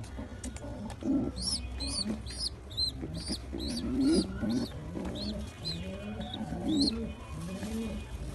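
Squab (baby pigeon) making loud begging squeaks for food, about two short high-pitched squeaks a second. Lower pigeon cooing sounds run underneath.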